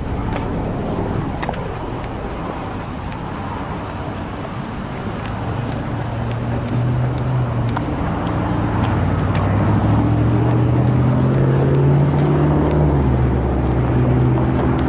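Steady rumbling noise, then from about six seconds in the low hum of an engine running grows louder and holds.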